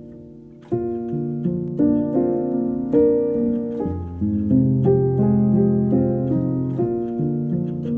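Background music on piano: after a soft held chord, louder notes and chords come in just under a second in and keep changing every half second or so.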